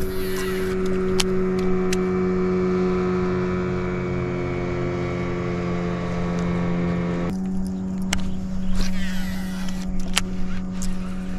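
A boat's motor running steadily, its pitch sagging slightly, then stepping up suddenly about seven seconds in as the throttle changes. A few sharp clicks sound over it.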